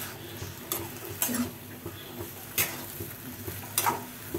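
Metal spatula scraping and stirring potatoes and flat beans in masala in a kadai, a few separate scrapes against the pan over a faint steady sizzle.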